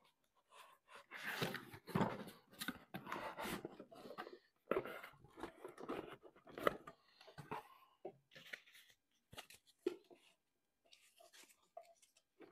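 A cardboard box being handled and opened: the lid slides off, and cardboard and foam packing inserts scrape and rustle, with scattered knocks. The handling is busiest in the first seven seconds and thins to occasional taps and clicks after that.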